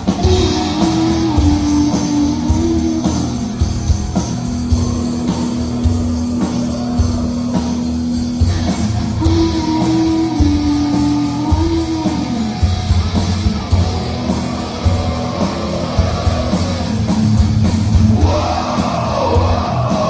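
Live heavy metal band playing loud: an electric guitar holds long melody notes over a steady drum and bass beat, and a voice comes in over it near the end.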